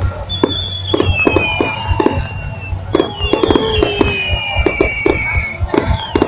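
Fireworks going off in a rapid, irregular string of sharp bangs, with several high whistles that fall in pitch over a second or two each.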